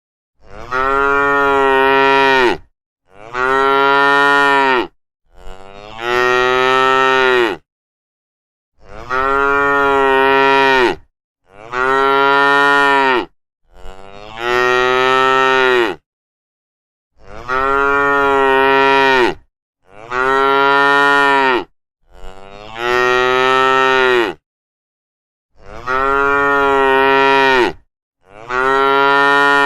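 Cattle mooing: long drawn-out moos of about two seconds each, coming in sets of three with silent pauses between the sets.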